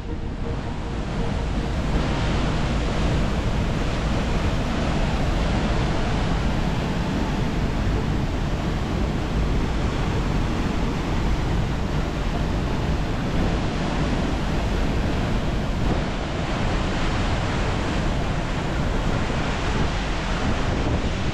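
Steady rushing of a waterfall: a dense, unbroken noise of falling water, heavy in the low end.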